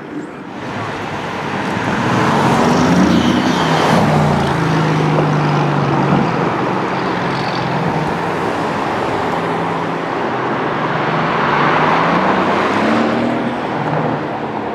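Mercedes-AMG GT S twin-turbo V8 and other sports cars driving past one after another. Their engine notes rise and then fall in pitch as they go by, once about three seconds in and again near the end.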